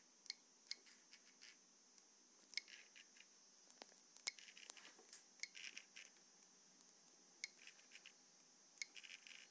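Faint key clicks from the Controleo3 reflow-oven controller's small built-in speaker as its touchscreen is tapped: short, sharp ticks at irregular intervals, a few of them in quick little runs.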